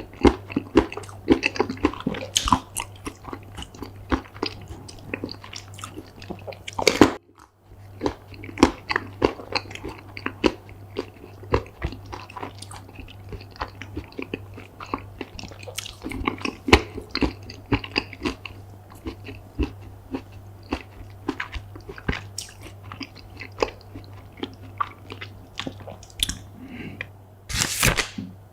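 Close-miked ASMR mukbang eating: crisp bites into chocolate-coated food, crunching and wet chewing, over a steady low hum. A short silent break comes about seven seconds in, then the biting and chewing go on.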